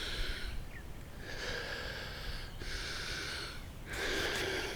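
A person breathing heavily close to the microphone: a few long, slow breaths in and out.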